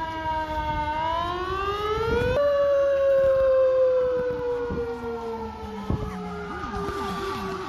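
Fire apparatus siren sounding while responding to a call: a wail slowly falling, rising and falling again in pitch, changing to a fast up-and-down yelp near the end.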